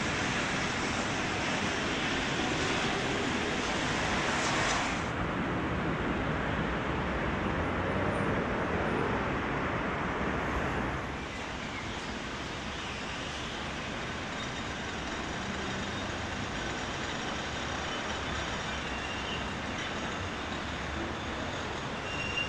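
Street and traffic noise around a tram on wet tracks, with a bright hiss that drops away abruptly about five seconds in. About eleven seconds in it changes to the quieter, steady running noise of a funicular car moving on its inclined track, with a few faint high squeals near the end.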